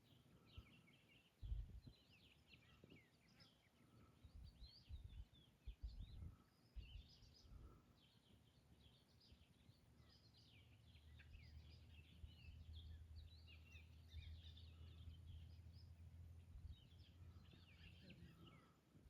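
Faint birdsong: many short chirps and twitters from several birds, going on throughout. A few low thumps in the first half and a low steady hum in the second half lie underneath.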